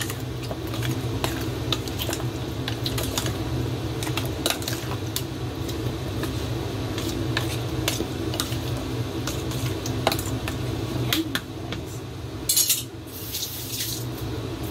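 Hands mixing marinated raw chicken wings in a plastic container: irregular clicks and knocks as wings and fingers hit the plastic, over a steady low hum. A brief hissing rustle about twelve and a half seconds in.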